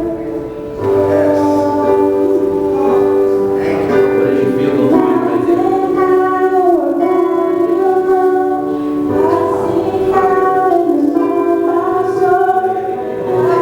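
Worship music: voices singing slow, long-held notes over instrumental accompaniment.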